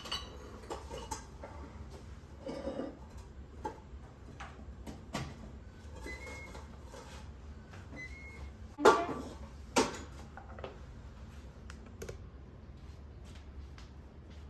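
Cookware being handled on a kitchen counter: scattered light clicks and taps, with two sharp metal knocks about nine and ten seconds in, the first the loudest.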